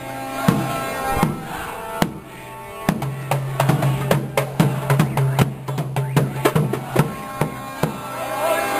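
Large double-headed marching drums beaten by hand. A few scattered strokes come first, then a quicker beat starts about three seconds in, over a steady low hum.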